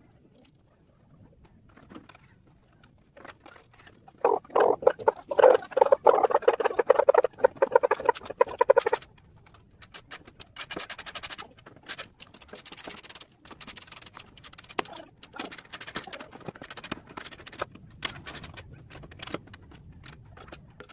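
Bolts of a steel under-engine cover being fastened with hand tools. About four seconds in there is a loud run of rapid clicking and rattling lasting some five seconds, then scattered sharper clicks.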